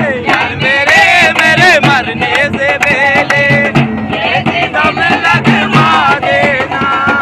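Group of men singing a folk song together to the beat of a dhol drum struck with a stick, with hand clapping.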